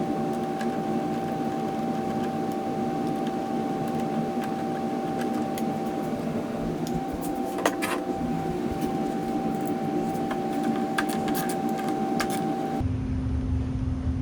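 A steady mechanical hum of several fixed tones, with scattered light clicks and taps from hand tools and parts being handled while motorcycle mirrors are taken off. Near the end the hum switches abruptly to a lower one.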